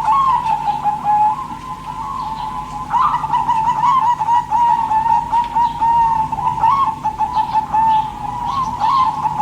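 Zebra dove (perkutut) cooing in a long, unbroken run of warbling coo notes held around one pitch. It is a little softer from about one to three seconds in, then louder again.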